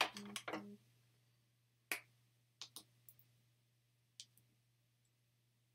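A few faint, sharp clicks and taps, a second or so apart, as makeup is handled and a lip product is picked up and opened, over a low steady hum. A brief hummed voice sound comes right at the start.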